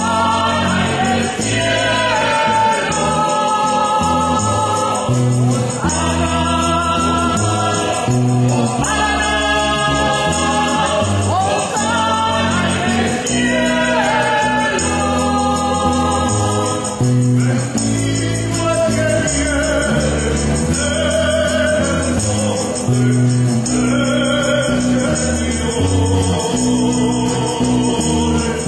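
A small church choir singing a Spanish-language hymn, accompanied by an acoustic bass guitar, an acoustic guitar and a hand tambourine with jingles.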